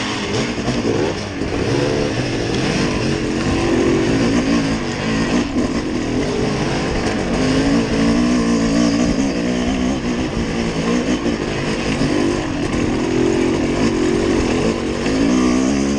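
Motor vehicle engine running loudly under load, its pitch rising and falling again and again.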